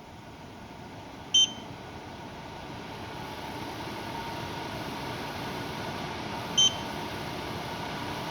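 Xiaomi Air Purifier 3 beeping briefly twice, about five seconds apart, while its fan's rushing air and faint whine grow steadily louder as it speeds up.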